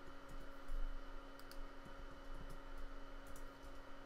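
Faint, scattered clicks from a computer mouse and keyboard, a handful over a few seconds, above a steady low hum.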